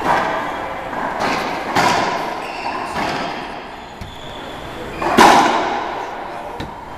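Racquetball rally: the rubber ball cracking off racquets and the court walls, a few sharp hits that echo in the enclosed court, with a quiet spell in the middle and the loudest hit about five seconds in.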